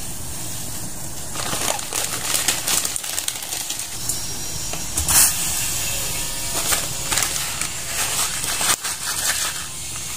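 Water boiling in a stainless steel saucepan over a gas burner, a steady hiss and bubbling. Scattered clicks and crackles come in as the dried noodle block goes into the water, with one sharper knock about five seconds in.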